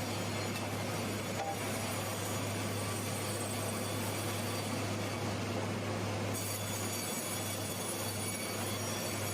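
Sawmill machinery running steadily: an even mechanical noise over a constant low electric hum.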